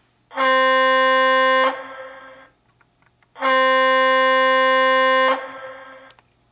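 Horn of an Aristocraft PCC streetcar model's QSI sound decoder, played at full volume through the car's onboard speaker: two long, steady blasts, the second a little longer, each trailing off after it stops.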